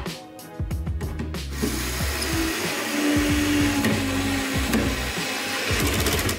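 Cordless drill-driver running steadily as it drives a screw into a plywood roof panel, for about four seconds from about a second and a half in.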